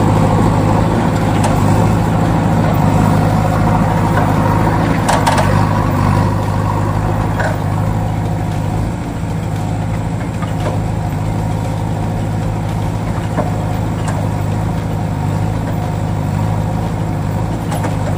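Steady engine idling sound with a constant low hum, played for a toy excavator as it is run along the floor, with a few light clicks.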